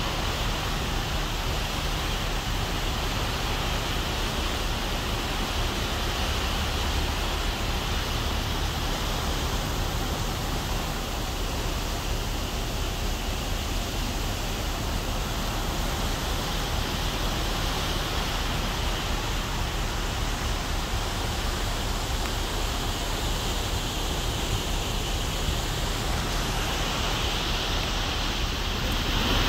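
Steady rushing noise of wind and a ship's churning wake, over a low, even hum from the ship's engines.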